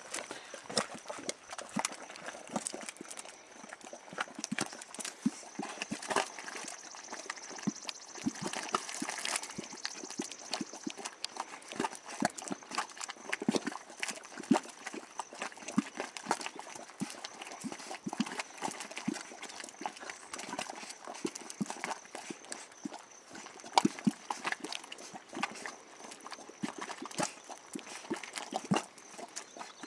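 Boiling mud pot bubbling: thick grey mud bursting in a steady, irregular run of short wet plops and pops as hot gas breaks through the surface.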